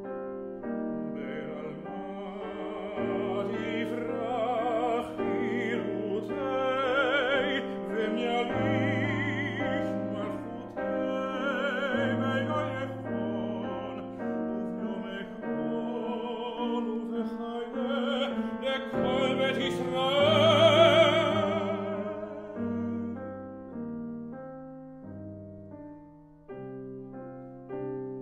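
A man singing in classical operatic style, with wide vibrato, accompanied by a grand piano. The voice grows to its loudest about twenty seconds in, then stops, and the piano plays on alone for the last few seconds.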